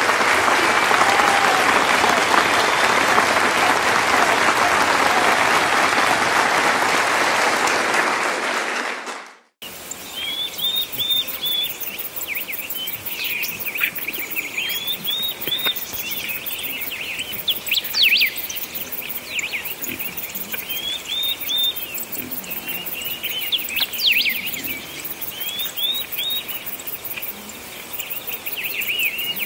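A crowd applauding, which cuts off abruptly about nine and a half seconds in. After that a bird repeats a short phrase of high chirps every few seconds, with a few sharp clicks and light background noise.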